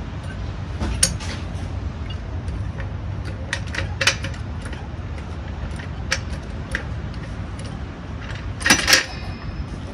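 Hand tools clinking and clattering against metal at a car's front wheel: scattered sharp clinks, with the loudest clatter near the end, over a steady low rumble.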